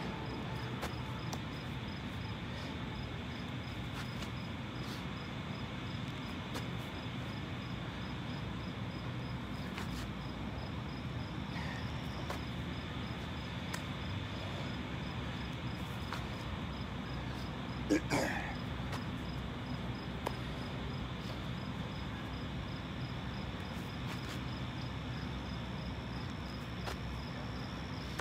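Outdoor ambience of insects chirping in a fast, even pulse that holds steady. There is one short, louder sound about eighteen seconds in.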